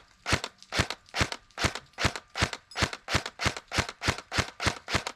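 K2A airsoft rifle firing single shots in a steady string, about thirteen sharp pops at roughly two and a half a second, stopping just before the end.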